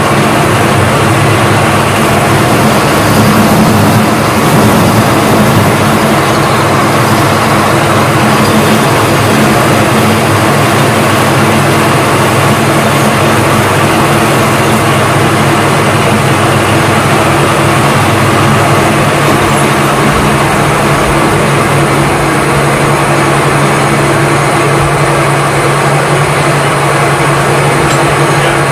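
Metal-turning lathe running steadily with its chuck spinning while the cutting tool turns a metal workpiece, making a loud, even machine hum with a few held pitches.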